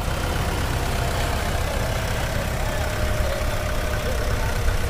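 Mahindra 575 DI tractor's diesel engine idling steadily.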